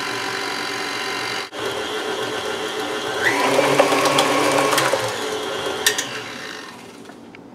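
KitchenAid stand mixer motor running steadily on low while beating flour into cake batter, then sped up and louder about three seconds in, with a brief dropout about a second and a half in and fading toward the end.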